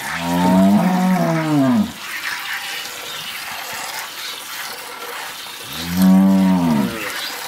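A cow moos twice: a long low moo that rises and falls in pitch for about two seconds, then a shorter one about six seconds in.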